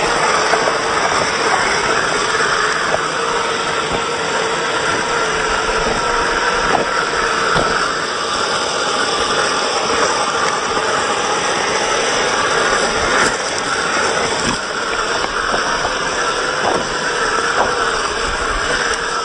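Brushed electric motor and gear train of a 1:10 scale Axial SCX10 II RC crawler whining steadily as it crawls over loose rocks, its pitch wavering a little with the throttle. Scattered clicks come from stones under the tyres.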